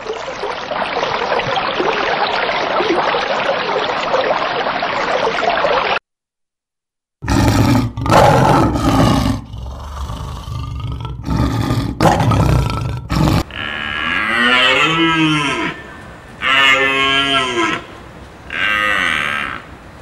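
A dense crackling hiss for about six seconds, then after a short silence a series of loud animal calls: several low, heavy bursts, followed by drawn-out calls that rise and fall in pitch, repeating about every two seconds.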